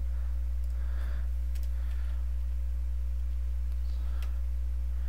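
Steady low electrical hum on the recording, with a few faint mouse clicks.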